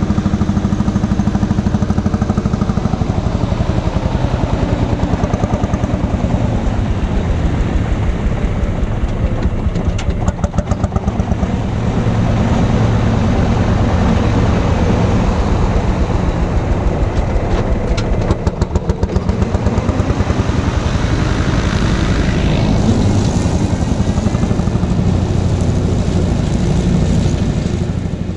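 Lanz Bulldog D6516's single-cylinder two-stroke hot-bulb engine running steadily under load, its rapid, even exhaust beat pulling a mulcher through pasture grass.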